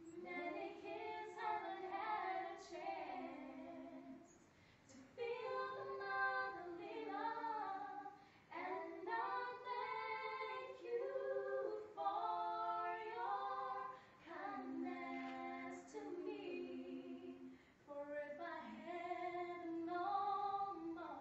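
Young female voices singing a capella, in phrases of a few seconds with held notes and short breaks between them.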